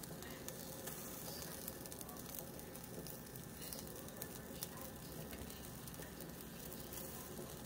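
Sliced stinkhorn mushroom eggs sizzling faintly in a dry pan with no oil: a steady low hiss with a few small crackles.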